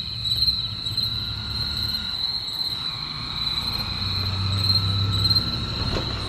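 Crickets chirping at night: a steady high drone with fainter pulsed chirps under it. A low rumble swells briefly in the second half.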